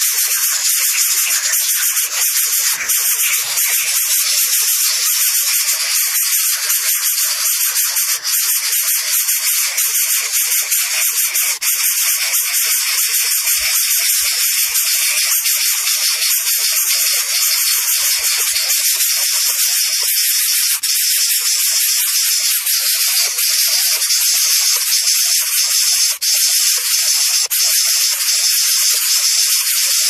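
Greater coucal nestlings hissing steadily and loudly, a snake-like rasping hiss from the begging chicks that keeps up without a break.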